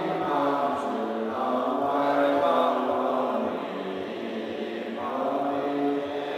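Chinese Buddhist monks chanting liturgy in unison during morning service, many voices holding long drawn-out notes that step to a new pitch every second or two.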